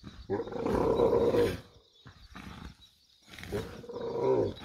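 She-camel groaning in two long, low calls, one just after the start and one near the end, as her prolapsed uterus is pushed back in by hand.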